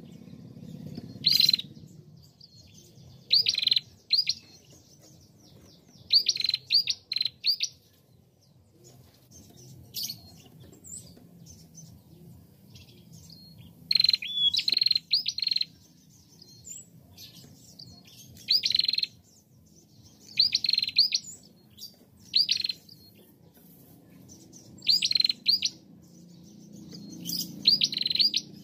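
Female prenjak calling actively: sharp, high chirps in quick clusters of two to four notes, repeated every couple of seconds.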